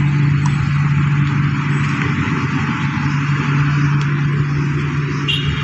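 A motor vehicle engine running steadily, with a constant hiss over the low hum.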